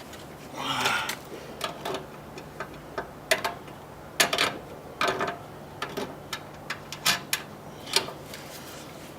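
Irregular metallic clicks and knocks from a hand rivet-nut tool being worked and loosened, with a short scraping rustle just under a second in.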